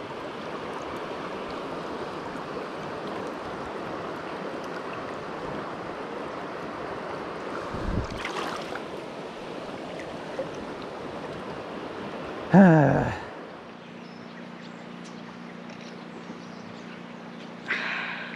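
A stream running high, a steady rush of water, with a short loud voice sound about two-thirds of the way through. Then the water cuts out suddenly, leaving a quieter, faint steady low hum.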